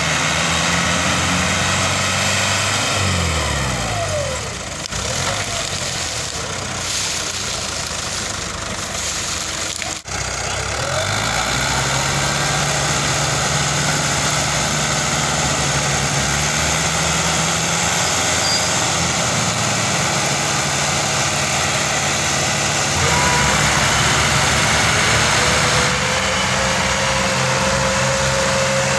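Diesel engines of a Fiat 480 and a Fiat 640 tractor running hard under load, pulling a loaded sugarcane trolley together. The engine note dips and climbs a few times, with a brief break about ten seconds in.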